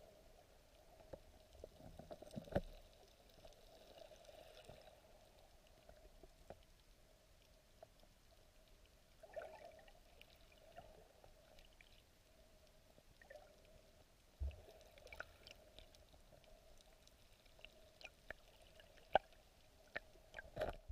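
Faint underwater sound in shallow sea water over pebbles: scattered clicks and ticks and a few louder knocks over a steady faint hum.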